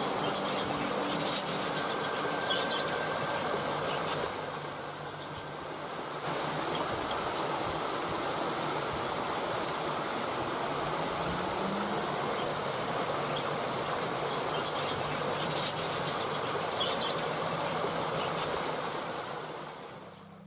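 Waterfall's steady rush of falling water, with a few short high chirps near the start and again later on. It dips briefly early on and fades down near the end.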